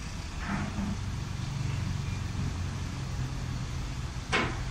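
Mercedes-chassis motorhome's diesel engine idling steadily, with a short, sharp noise near the end.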